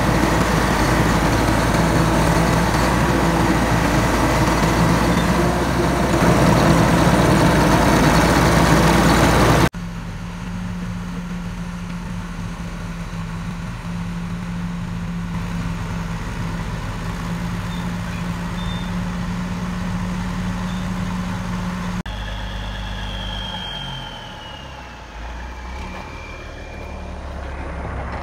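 Caterpillar D6 bulldozer's Cat 3306 diesel engine running steadily, loud and close from the operator's seat for the first third. After that it is heard farther off and quieter as the dozer crawls along.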